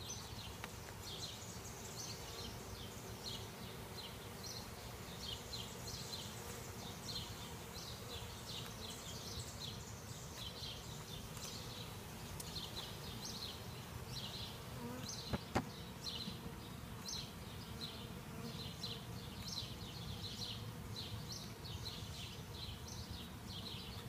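A package of honey bees buzzing as they are being installed into the hive, a steady low hum, with many short high chirps throughout. There is a sharp knock about fifteen seconds in.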